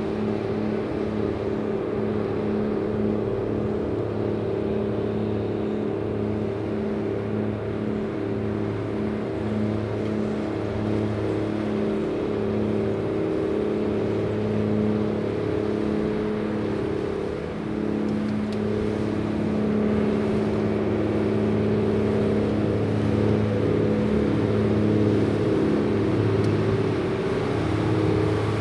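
The diesel engine of the Wakato ferry boat Dai-18 Wakato Maru running steadily, a low droning note that wavers a little about two-thirds of the way through.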